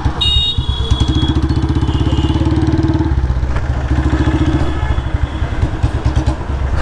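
Royal Enfield Standard 350's single-cylinder engine running loud through its exhaust while the bike is ridden, its firing pulses picking up about a second in. The exhaust leaks at the front header pipe joint, which the owner blames on a worn exhaust gasket.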